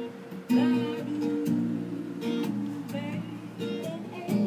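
Guitar strumming chords, each chord ringing on until the next is struck.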